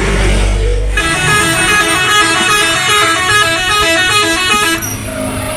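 Bus 'telolet' musical horn playing a fast tune of short stepped notes, starting about a second in and stopping shortly before the end, with a low engine rumble before and after it.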